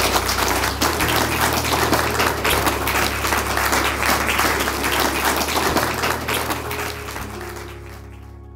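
Wedding guests applauding, many hands clapping at once, fading away near the end, with soft music underneath.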